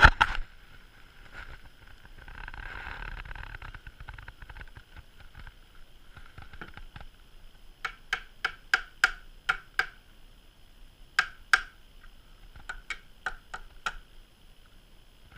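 Woodworking clamp being put on and tightened against a board: a soft shuffling handling noise, then three runs of sharp clicks, about seven, then two, then five.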